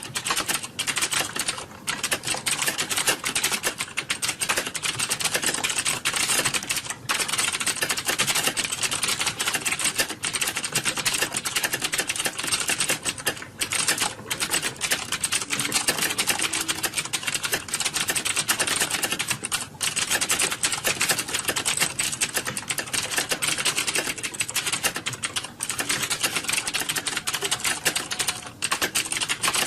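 Fast typing on a computer keyboard during a timed typing test: a dense, continuous run of key clicks, broken by a few brief pauses.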